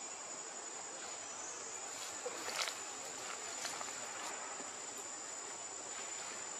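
Outdoor ambience with a steady high-pitched insect drone, and a couple of faint short sounds about two and a half and three and a half seconds in.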